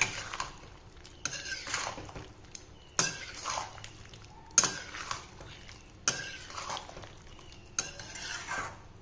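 A spatula stirring chunky vegetable curry in a metal kadhai, scraping and knocking against the pan. There are about six strokes, each starting sharply and trailing off, roughly a second and a half apart.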